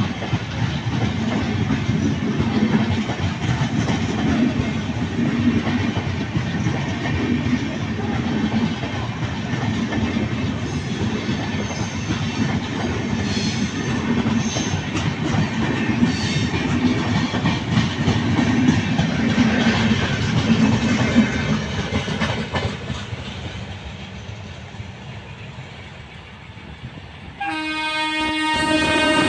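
Indian Railways passenger coaches rolling past close by: a steady rumble and clatter of wheels on rail that fades away over the last few seconds. Near the end a train horn blows one steady note.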